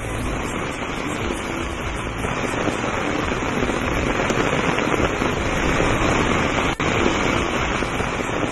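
Heavy rain pouring down in a steady, dense hiss and patter, cutting out briefly about seven seconds in.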